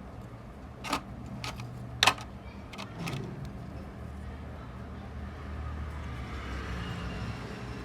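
Several sharp clicks and taps, the loudest about two seconds in, over a steady low rumble.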